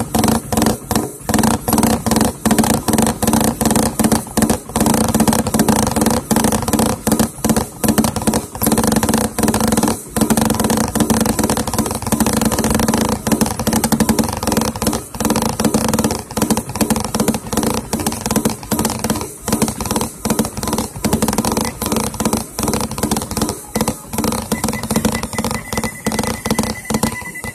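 Music playing, with a sustained low drone and frequent short knocks.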